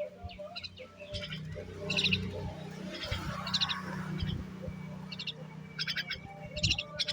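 Birds chirping in short, separate high chirps, repeated every half second or so, over a steady low hum.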